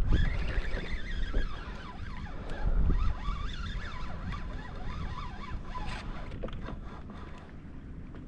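Fishing reel's drag buzzing and clicking in uneven runs as a hooked fish pulls line, over low wind rumble on the microphone.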